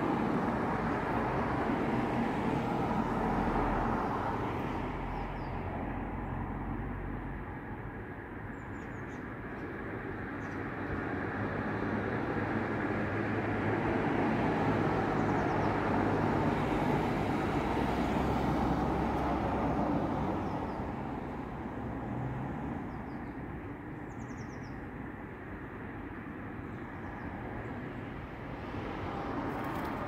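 Distant road traffic as a steady rushing rumble that slowly swells and eases twice, with a few faint, short, high bird chirps over it.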